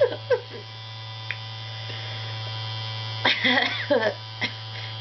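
A small electric sneeze-inducing device buzzing steadily at a low pitch, running continuously while it is used to try to set off a sneeze; no sneeze comes. A few short vocal noises break in about three and a half seconds in.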